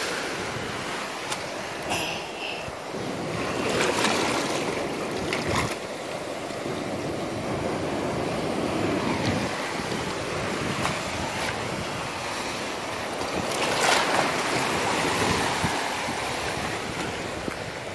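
Surf washing over a rocky reef shelf: a steady hiss of foaming seawater that swells louder about four seconds in and again near the fourteen-second mark.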